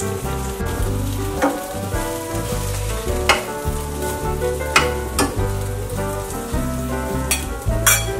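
Egg-dipped bread slices sizzling as they fry in a non-stick pan, with several sharp clicks and scrapes as a spatula turns them against the pan.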